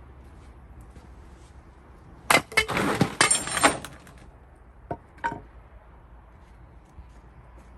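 A Gränsfors Bruk axe striking a cherry-wood round: a sharp chop about two seconds in, then a second or so of cracking and clattering as the wood splits apart, followed by two light knocks.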